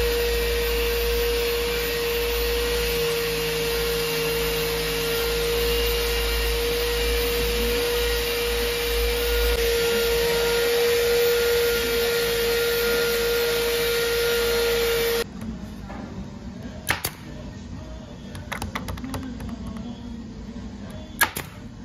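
A motor runs steadily, loud, with a constant high hum over a hiss, and stops abruptly about two-thirds through. After it, a pneumatic brad nailer fires several sharp shots into pine boards.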